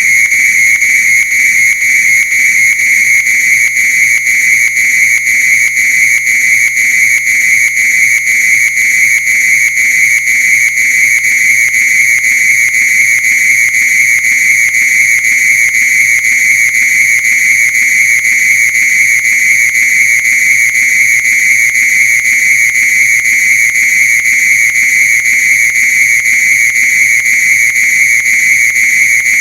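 Fire alarm sounder giving a loud, continuous high-pitched tone that holds steady without a break.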